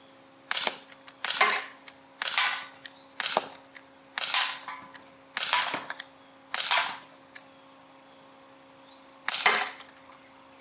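Gamo P-430 semi-automatic CO2 pistol firing eight shots: sharp pops about a second apart, with a longer pause before the last one.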